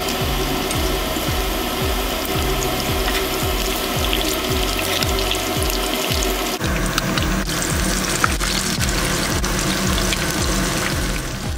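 Hot oil sizzling as fish and vegetable fritters deep-fry, under background music with a steady low beat of about two thumps a second.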